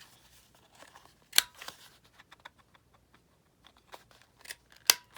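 Paper and craft tools being handled at a work table: two sharp clicks, about a second and a half in and near the end, with light paper rustling and small ticks between them.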